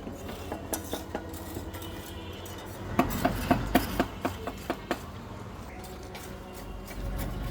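Metal tools clinking and scraping against metal on building work. About halfway through comes a quick run of ringing taps, roughly four a second for about two seconds, with softer scrapes and clicks before and after.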